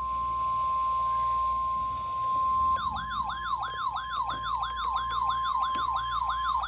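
Weather-radio warning alarm, a single steady tone of about 1050 Hz, sounding ahead of a severe thunderstorm warning. About three seconds in, a siren-like warbling tone joins it, sweeping up and down about three times a second over the steady tone.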